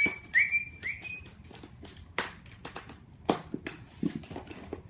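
A dog whimpering: three short, high, slightly rising whines in the first second and a half. This is followed by scattered clicks and scrapes of a cardboard and plastic box being worked open.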